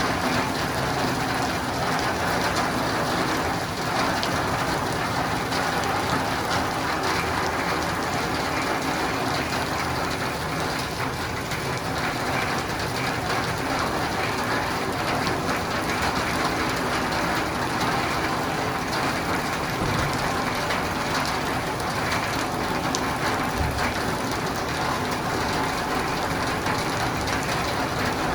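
Steady rain falling on a roof and windows, an even, unbroken patter.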